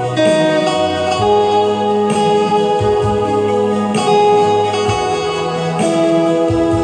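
Instrumental guitar music: a slow, sustained melody over a bass line, with the notes changing about once a second.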